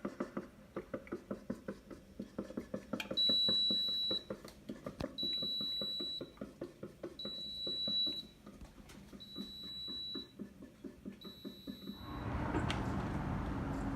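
Electronic alarm beeping: five long high-pitched beeps about two seconds apart, over fast regular ticking. Near the end the beeping stops and a steady background hiss takes over.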